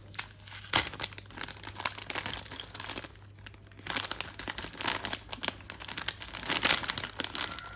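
Jewellery packaging crinkling and rustling in the hands as a pair of stud earrings is unwrapped, with a sharp snap about a second in and a short lull around three seconds.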